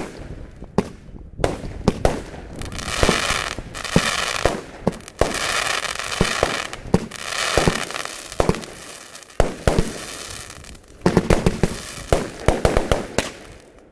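Fireworks going off close by, loud: a string of sharp bangs, with two stretches of dense crackling in the first half and a quick volley of bangs near the end.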